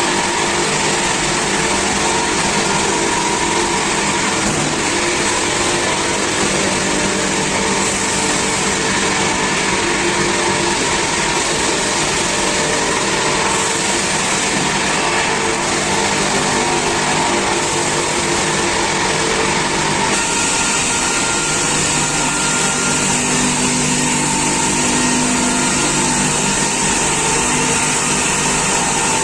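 Multi-saw log-sawing machine with circular saws running steadily, a dense, even machine noise with a few steady tones. The sound changes in character about twenty seconds in.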